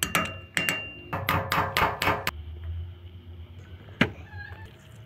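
Hammer striking a steel pin punch to drive the rivets out of a rusty cleaver's wooden handle: about seven sharp metallic blows in the first two seconds, the first ones ringing briefly. A single knock about four seconds in.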